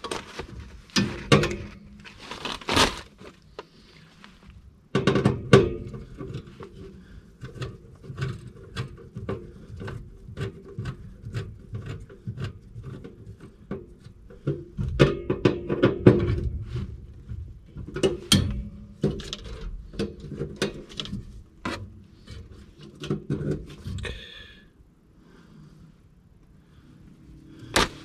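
Hands working on a furnace's control components and wiring: a busy run of clicks, taps and thunks, several a second at times, going quiet near the end.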